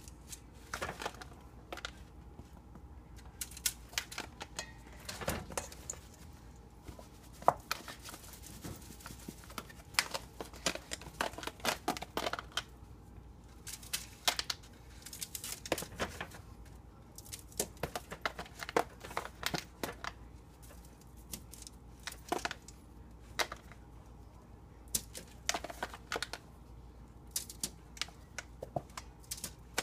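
Aluminium foil crinkling and a plastic tub clicking in short, irregular taps and rustles as flour-coated zucchini sticks are dredged, tapped off and laid on a foil-lined baking sheet.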